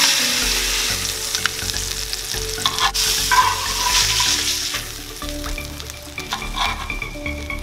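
Ahi tuna steaks sizzling in butter and olive oil in a skillet, with a few sharp clicks of metal tongs against the pan as the steaks are lifted out; the sizzle fades in the second half once the steaks are out of the pan.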